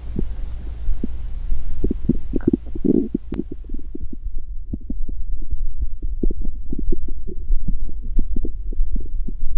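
Hungry stomach gurgling: a quick, irregular run of short bubbling pops over a steady low hum.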